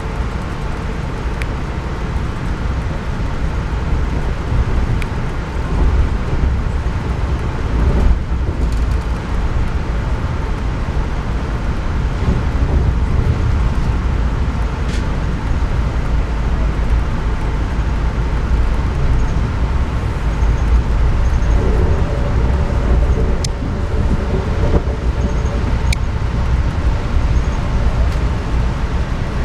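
Steady low rumble of an Amtrak passenger train running on the rails, heard from inside the car, with a few faint clicks.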